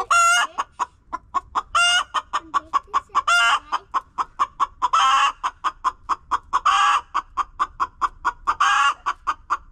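Brown hen clucking steadily, a quick run of short clucks about five a second, with a longer, louder squawk breaking in every second and a half to two seconds.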